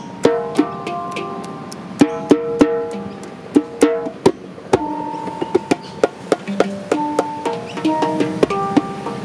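Djembe and steel handpan (hang) played together by hand: sharp slaps and tones on the djembe under ringing pitched handpan notes that sustain after each strike, in a loose rhythmic groove.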